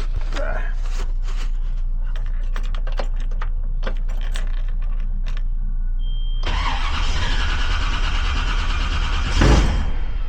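1957 Chevrolet Bel Air engine running with a steady low hum, with light clicks over it. From about six seconds in a high steady whine and a louder rushing noise join it, surging near the end.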